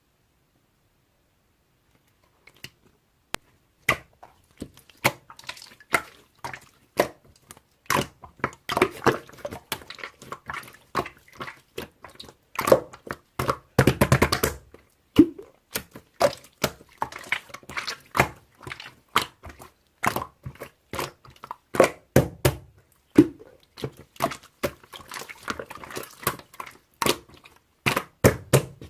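Slime being squished and pressed by hand, giving a run of wet clicks, pops and squelches of varying loudness. There is a longer, thicker squelch about halfway through.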